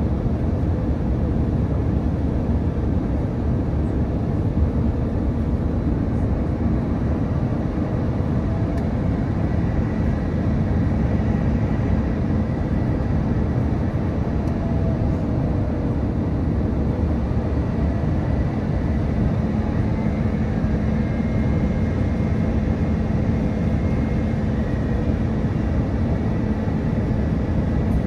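Steady rumble of an Airbus A350 in flight heard from inside the cabin: engine and airflow noise on the approach to landing, with a faint high whine joining about a third of the way through.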